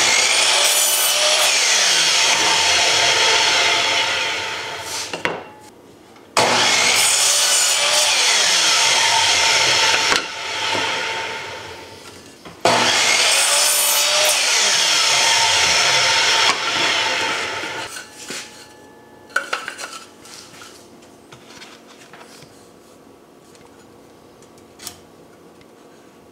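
Electric miter saw started three times, each run lasting about four seconds as the blade cuts through a wooden bar, then winding down with a falling whine when the trigger is released. A few light knocks from handling the wood follow near the end.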